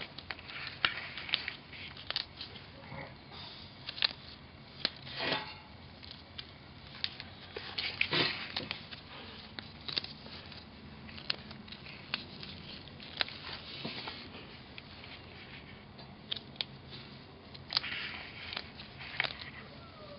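Gloved hands pressing and molding sticky epoxy putty onto a cracked iron chair handle: irregular small crackles, clicks and rustles of the gloves and putty.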